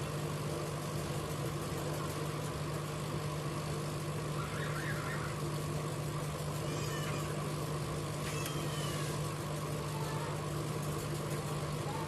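Hot air rework station blowing steadily onto a phone's charging socket to melt its solder for removal: a steady fan hum with an even hiss of air.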